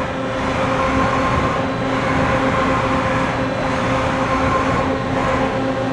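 A 1997 Daewoo Puma 18 CNC lathe moving its turret along its axes: a steady mechanical whine made of a few constant tones over a running hum, swelling and easing slightly.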